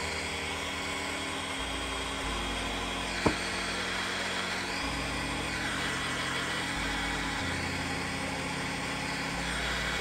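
A handheld electric tool's motor and fan run steadily for the whole stretch over background music with a changing bass line, with one sharp click about three seconds in.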